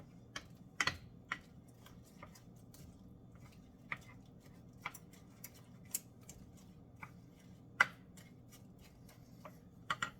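Scattered light clicks and taps of kitchen utensils and dishes being handled, a dozen or so at irregular intervals, with one louder knock about eight seconds in.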